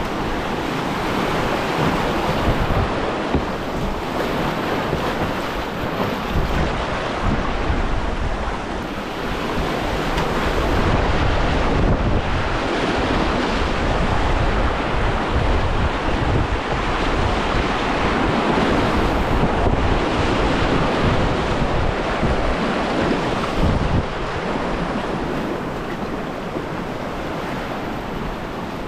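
Whitewater rushing over rocks in a small, shallow river rapid, heard close from a kayak, with wind noise on the microphone adding a low rumble.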